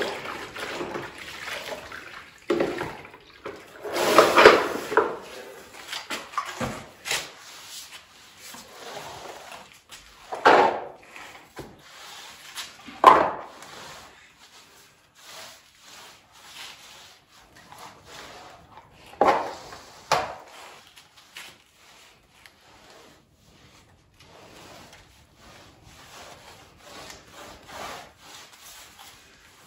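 Wet mop head on a long pole scrubbing a rough stucco wall, a rubbing scrape in irregular strokes, now and then louder. The wall is being washed down with water to clear off sanding dust.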